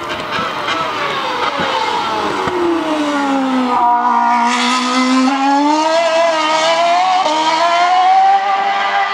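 Red Bull RB9 Formula 1 car's 2.4-litre Renault V8 braking and downshifting, its pitch falling for the first three seconds or so. The pitch then rises again in steps as the car accelerates away through the upshifts, over a hiss of spray from its wet-weather tyres.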